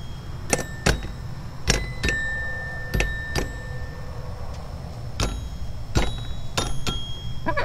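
A hen pecking the metal bars of a toy xylophone: about a dozen irregularly spaced struck notes, each a sharp tap followed by a short ring, with one note ringing on for about two seconds. The hen starts clucking right at the end.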